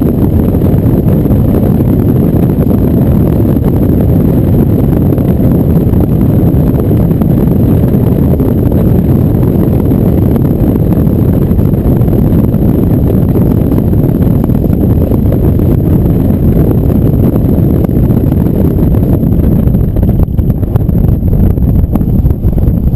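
Steady wind buffeting on a truck-mounted GoPro's microphone, a loud low rumble that turns choppier and gustier near the end.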